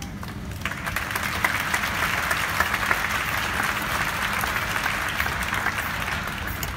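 Audience applauding: the clapping sets in about half a second in, swells, and holds steady, greeting an act that has just been announced.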